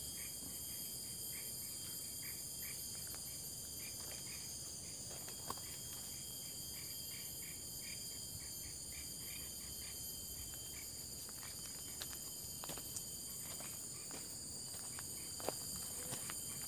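Chorus of insects: a steady high-pitched buzz with a regular chirping, about three chirps a second, over it. A few faint clicks come through in the second half.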